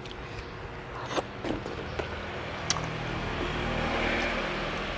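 Quiet chewing with a few small clicks, over a steady low hum; a vehicle passes, swelling up about three seconds in and fading near the end.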